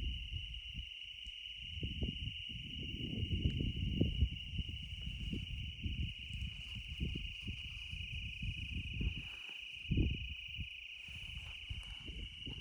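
Steady, unbroken chorus of insects, crickets or cicadas, trilling high, with an irregular low rumble underneath.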